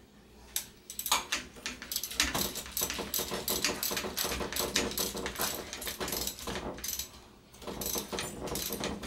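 Ratchet driving a long hex bit socket, clicking in rapid runs as the bolt at the bottom of a suspension fork's lower leg is tightened. There is a short pause near the seventh second, then more clicking.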